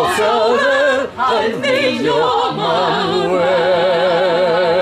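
Small group of operatic voices, women and a man, singing a Spanish-language Christmas carol a cappella with strong vibrato, holding one long chord through the second half.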